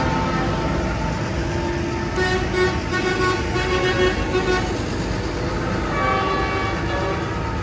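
Diesel tractors rumbling past in a slow procession, with a horn tooting in a quick series of short blasts about two seconds in, and another tooting tone near the end.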